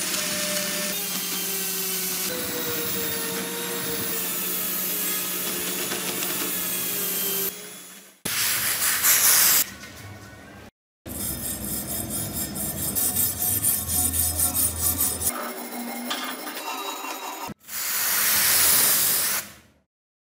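Rotary tool with a bristle brush wheel running against a rusty steel knife blade, its motor tone wavering slightly. After about eight seconds come edited-together bursts of workshop sound: a loud hiss, a stretch of quick rubbing strokes on the metal, and a second hiss near the end.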